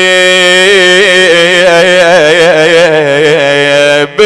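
A male reciter's voice singing one long held note of an Iraqi nāʿī mourning lament, with wavering melismatic ornaments through the middle. It breaks off a little after four seconds.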